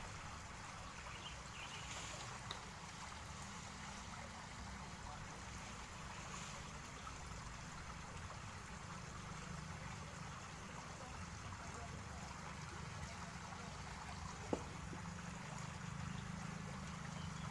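Ditch water flowing steadily through a culvert, an even low trickling noise, with a faint click near the start and a short sharper click near the end.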